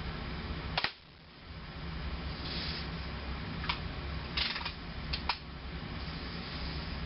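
Daisy Red Ryder lever-action, spring-piston BB gun being cocked and fired: several sharp snaps and clicks, with a short rattle about four and a half seconds in, over a steady low background hum.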